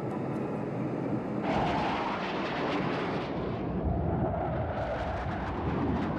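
Jet roar of a Panavia Tornado's twin RB199 turbofan engines as the aircraft flies past at low level. It is a loud, steady rush that swells about a second and a half in and again near the end.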